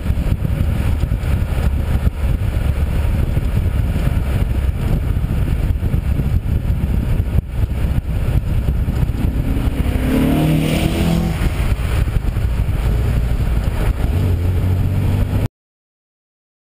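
Classic 1970s Opel cars on the move, heard from a camera mounted on the outside of one car: a steady low rumble of engine, wind and tyres. About ten seconds in an engine revs up briefly with a rising note, and the sound cuts off suddenly near the end.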